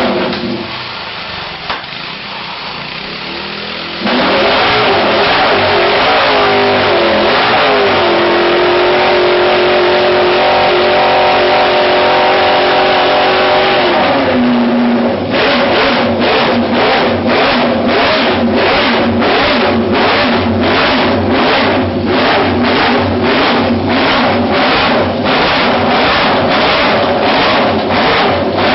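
Multi-cylinder car engine's exhaust running, jumping up in revs about four seconds in and holding high revs. It drops back at around fourteen seconds, then pulses in quick, even blips about twice a second.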